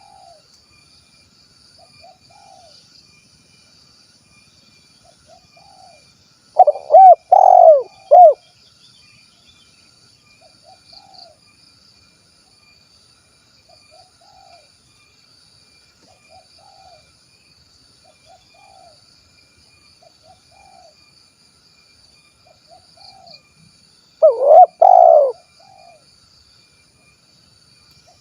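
Spotted dove (tekukur) cooing: two loud song phrases of a few notes each, about 7 and 25 seconds in, with fainter short coos repeating roughly every second and a half between them.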